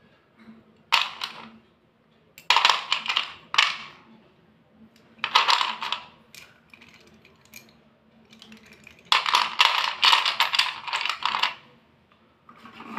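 Thick white slate pencils clicking and clattering against one another as they are handled and rubbed together in the hands, in several bursts of rapid clicks, the longest near the end.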